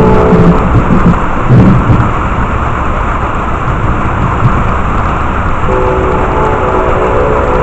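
Heavy rain falling steadily while a train horn sounds, a chord of several steady tones. The horn stops just after the start and sounds again about three-quarters of the way through.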